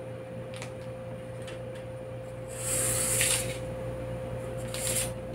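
Red felt-tip marker drawn along a ruler on pattern paper: a scratchy hiss for about a second starting about two and a half seconds in, then a shorter stroke near the end.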